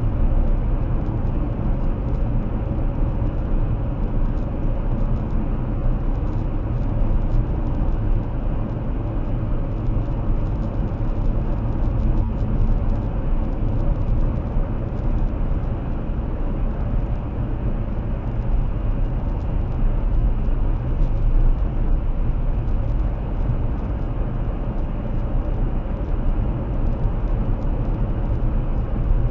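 Steady road noise of a Toyota Prius cruising at highway speed, about 62 mph, heard inside the cabin: an even tyre and wind rumble, strongest in the low end, with no change in pace.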